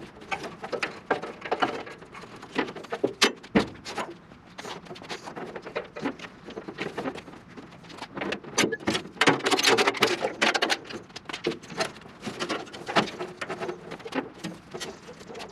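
Hands working a car's wiring harness: irregular clicks, rustling and light knocks.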